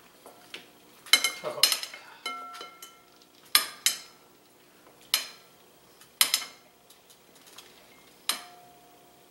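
Metal tongs clinking against a ceramic mixing bowl as sauce-coated chicken wings are tossed and lifted out. About eight sharp, irregular clinks, some in quick pairs, several leaving a short ring from the bowl.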